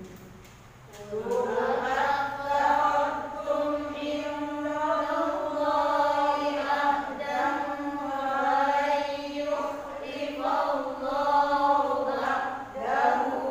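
A man reciting the Qur'an in Arabic in a melodic tilawah style, drawing out long held, wavering notes that glide up and down in pitch. He pauses for breath at the start and again shortly before the end.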